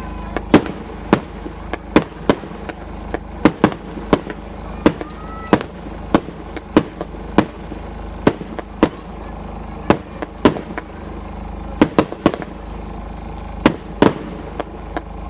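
Aerial fireworks bursting in quick, irregular succession: sharp bangs about two a second over a continuous low rumble of echoing detonations.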